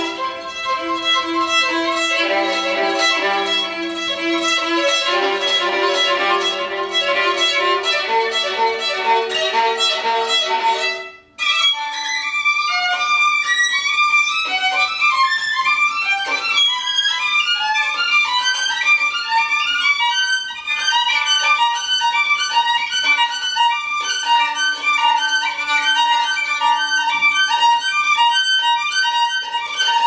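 Solo violin playing: held notes in two voices under quickly repeated strokes, then a short break about eleven seconds in, followed by fast runs of short notes.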